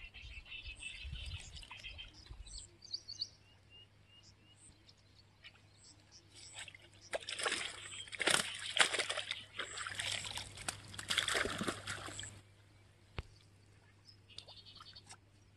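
Water splashing and sloshing in and around a mesh keep net at the water's edge, loudest for about five seconds in the middle, with a few short bird chirps earlier on.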